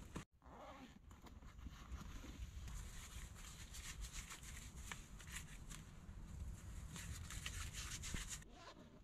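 Faint rustling and small clicks as gloved hands handle gear over a canvas bag, over a quiet forest background.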